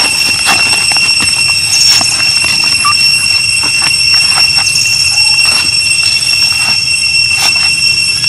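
A loud, steady, high-pitched insect drone, such as a cicada chorus, holds one pitch throughout. Over it come scattered light crackles of dry leaves and a couple of brief squeaks, likely from the baby monkey.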